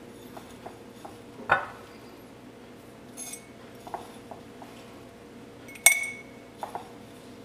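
A metal spoon scooping rolled oats from a glass bowl and clinking against glass, with a short dry rattle of oats dropping into an empty glass jar. The loudest is a sharp clink with a brief ring about six seconds in, followed by a couple of lighter clinks.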